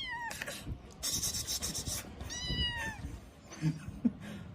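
A two-month-old kitten meowing in a high voice: a short call that falls away right at the start and a longer one about two seconds in. Between them is a scratchy rubbing noise.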